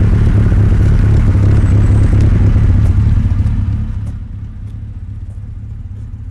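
Jaguar XKSS engine running through its side exhaust as the car drives past, a steady low note that fades after about four seconds as the car moves away.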